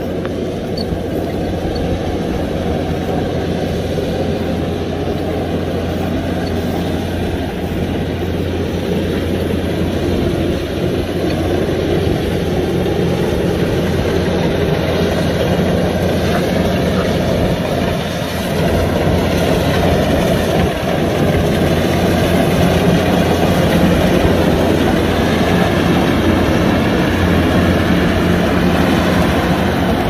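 Kubota DC-105X combine harvester's diesel engine running steadily as the machine cuts and threshes rice, a continuous drone that grows louder as it comes closer.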